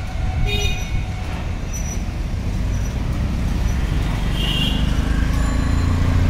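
Street traffic: a steady low rumble of engines and tyres from passing vehicles, growing louder near the end as one passes close. A short high tone sounds about half a second in.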